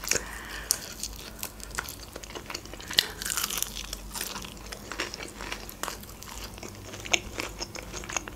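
Biting into and chewing a crispy breaded fried chicken wing close to the microphone: a run of short, sharp crunches, the loudest about three seconds in.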